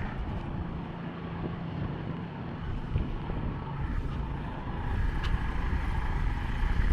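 Motor vehicle engine running on the street, growing louder near the end, with wind buffeting the microphone.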